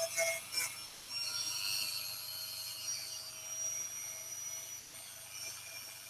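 Handheld Dremel rotary tool running with a steady high whine while sanding a cork fishing float, with a few brief scrapes of the bit against the cork in the first second.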